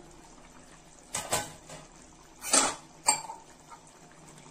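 Metal kitchenware clinking: a handful of short knocks and clinks of utensils on an aluminium pot, between about one and three seconds in.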